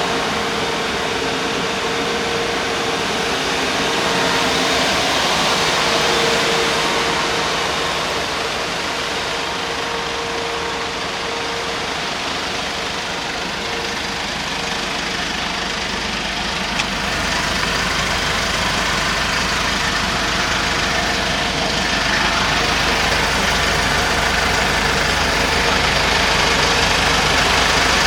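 Mercedes Sprinter 516 diesel van engine idling steadily, with a deeper low rumble coming in about two-thirds of the way through.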